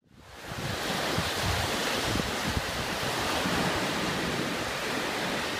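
Ocean surf washing up a sandy beach, a steady hiss of breaking waves, with wind gusting on the microphone as a low uneven rumble. It fades in over the first half second.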